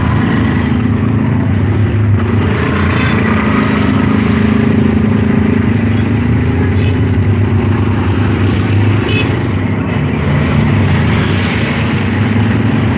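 Auto-rickshaw's small engine running steadily under way, heard from inside the open passenger cabin along with road noise. Its note shifts a little in pitch as it speeds up and eases off.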